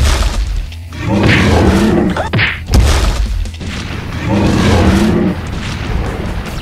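A heavy boom, then two long growling monster roars with a crash between them: dubbed sound effects for the giant robot dinosaur, over background music.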